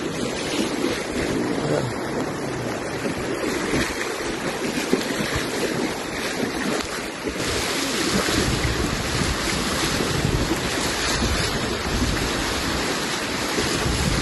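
Floodwater from a burst reservoir wall rushing hard across a road, with wind buffeting the microphone. The rush grows louder and hissier about halfway through.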